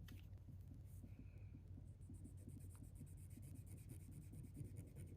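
Faint scratching on paper as fountain pen ink is swatched, over a low steady hum.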